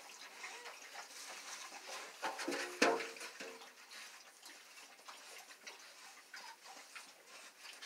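Pitbull puppies moving about in a straw-bedded wire pen: faint scattered clicks and rustling, with a short whine and a sharp knock about three seconds in.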